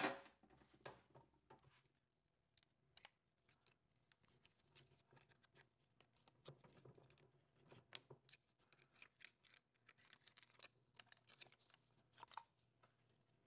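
Near silence with faint, scattered clicks and scrapes of gloved hands unclipping the solenoid wiring harness and connector on a Ford 4R70W transmission's valve body.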